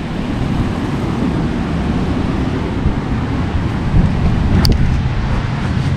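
Wind rumbling steadily on the microphone, with a single sharp click a little past halfway, as a caravan door latch is worked.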